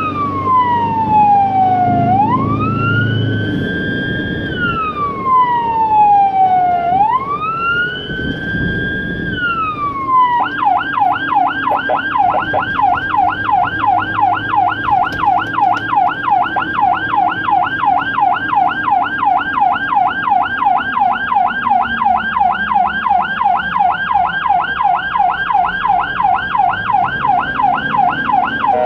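Ambulance siren sounding a slow rising-and-falling wail, each cycle about five seconds long. About ten seconds in it switches to a fast yelp of about three sweeps a second. It is heard from inside the ambulance's cab, with engine and road noise beneath.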